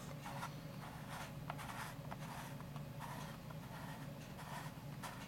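Faint scratchy handling sounds with a few light ticks, from a collectible figure being turned and moved in the hands, over a steady low hum.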